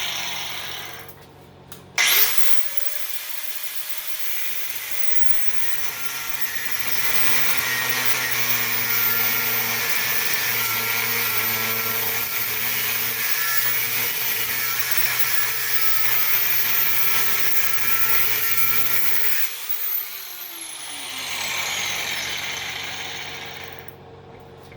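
Abrasive cutoff wheel on a power tool cutting through a transformer's steel casing. It starts sharply about two seconds in and spins up, runs steadily under load, then is switched off and winds down with a falling whine.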